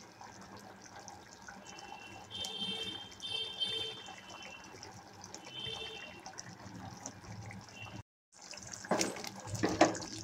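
Thick chickpea gravy simmering in a non-stick kadai, faintly bubbling, with a few short high-pitched tones in the background a couple of seconds in. After a brief break, a wooden spatula stirs the gravy, scraping and knocking against the pan, loudest near the end.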